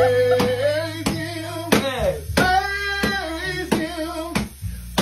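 Singing with hand clapping in time, about two claps a second.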